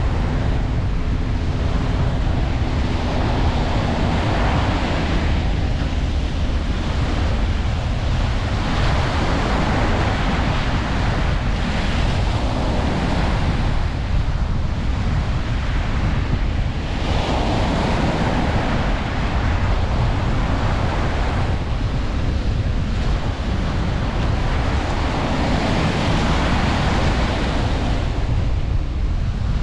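Ocean surf: waves breaking and washing on a beach, swelling every few seconds over a steady low rumble, with wind buffeting the microphone.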